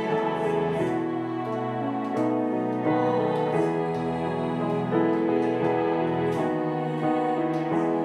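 Women's choir singing a hymn with piano accompaniment, the sung notes held and changing about every second.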